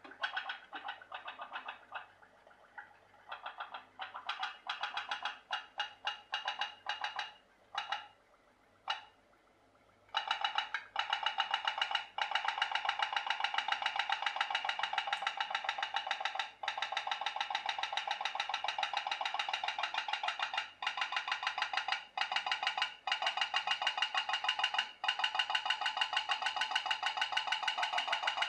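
Home-made pop-pop (putt-putt) steam boat with a candle-heated brass-tube boiler, popping rapidly as it runs on the water in a metal sink. The popping stutters and breaks off a few times during the first third, then settles into a steady, even rhythm.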